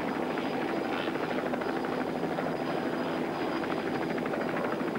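Helicopter in flight: the steady rapid chop of its main rotor blades over engine noise, with a thin steady high whine.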